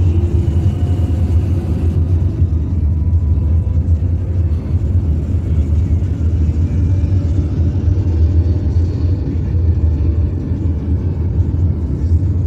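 Steady low rumble of engine and road noise heard inside a moving car's cabin with the windows closed.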